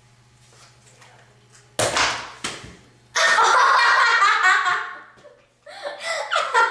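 A sharp smack about two seconds in, then two girls shrieking loudly and breaking into giggling laughter.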